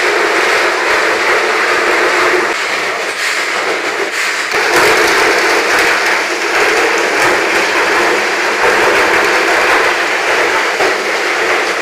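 Underground ore-handling machinery running: broken gold ore moving along conveyors and chutes, a loud, steady mechanical din.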